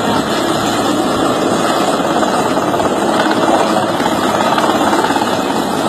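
A loud, steady engine noise running without a break.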